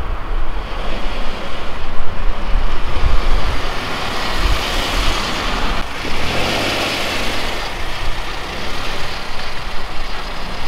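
Hyundai i10 small hatchback driving slowly across paving stones: engine and tyre noise, growing louder around the middle as the car draws near.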